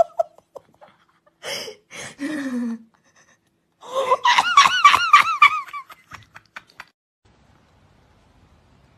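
A person gasping and laughing. There are breathy gasps about a second and a half in, then a quick run of high-pitched laughs from about four seconds that stops about two seconds later.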